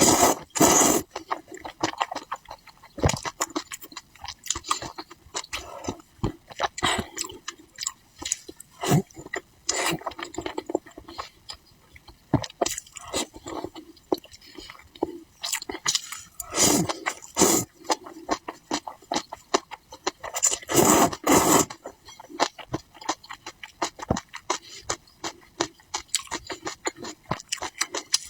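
Close-miked eating sounds: irregular wet chewing, clicks and crunches, with a few louder bursts spread through.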